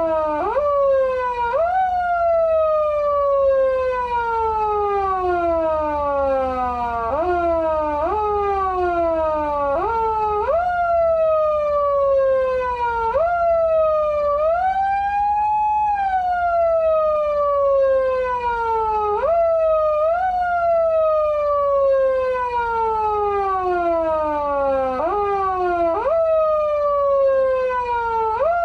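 Electronic police-style siren from a SAP-500BK-PV siren amplifier played with a foot-siren pedal, copying a mechanical siren. The pitch jumps up quickly with each press and slides slowly down when let go, over and over. About halfway through, one press holds longer and the pitch climbs higher before falling away.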